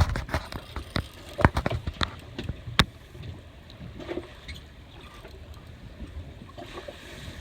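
A handful of sharp knocks and clicks in the first three seconds, the loudest about a second and a half in and near three seconds, over a steady low rumble of wind and water around a fishing boat.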